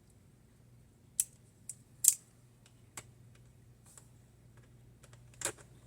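A few scattered sharp clicks and taps of a multi-tool screwdriver and small parts against a laptop's plastic case and screws, the loudest about two seconds in, over a low steady hum.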